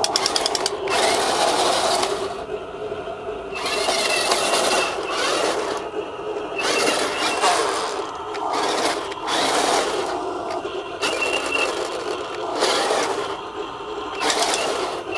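Radio-controlled toy tank's small electric drive motors and plastic gearboxes whining in repeated bursts of a second or two as it drives and stops, its tracks grinding over gravel.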